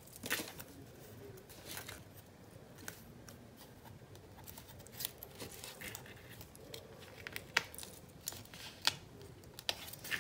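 Faint scratches and small clicks of tweezers and a craft blade working a strip of washi tape on a planner page, trimming the tape and lifting its cut end, with a few sharper ticks in the second half.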